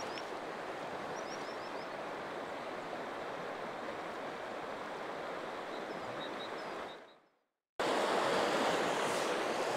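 River current rushing steadily, with a few short high bird chirps about a second in. The sound fades out for under a second near the end, then the water comes back a little louder.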